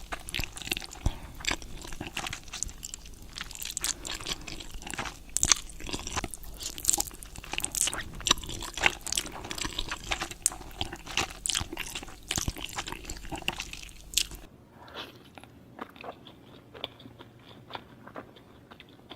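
Close-miked crunchy food being bitten and chewed, a dense run of sharp crackling crunches. About three-quarters of the way through it drops suddenly to quieter, sparser crunching.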